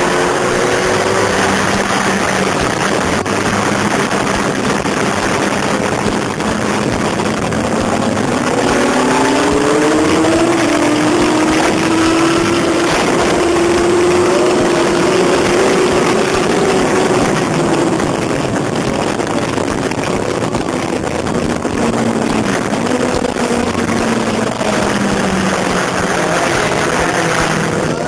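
Sport motorcycle engine running at track speed, heard from the cockpit under heavy wind noise. The engine pitch climbs slowly and falls away more than once.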